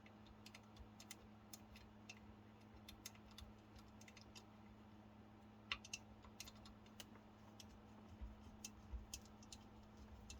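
Faint, scattered clicks and taps of a small screw and driver being worked against the metal parts of a model excavator kit while lining up a hole, over a low steady hum.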